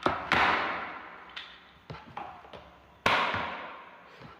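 Parts of a ring light stand and phone holder being handled and fitted together: a series of sharp knocks and clicks, the two loudest each trailing off over about a second.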